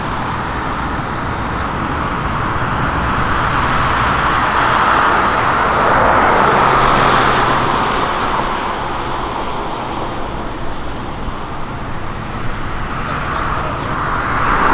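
Road traffic passing close by: tyre and engine noise from cars that swells to a peak about halfway through, eases off, then rises again as another vehicle approaches near the end.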